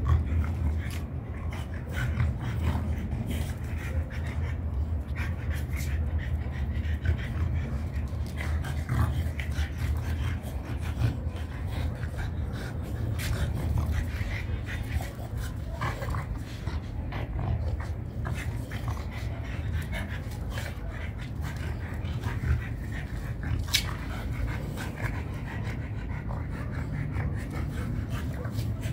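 Two French bulldogs play-fighting, giving off small dog noises and scattered light clicks, over a steady low hum.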